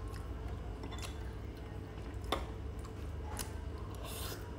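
Quiet eating sounds: a metal spoon clicks a few times against a ceramic bowl, and a short slurp comes near the end as a spoonful goes into the mouth, over a faint low hum.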